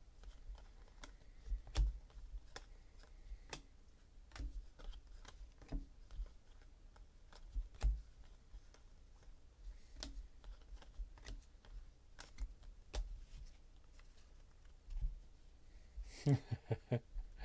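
Trading cards flipped one at a time from a hand-held stack, a steady run of light card clicks and snaps about two a second.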